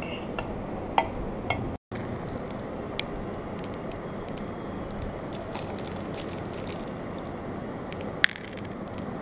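Steady room noise with a handful of light clinks against a glass dessert cup, the sharpest near the end, and a moment's silence just under two seconds in.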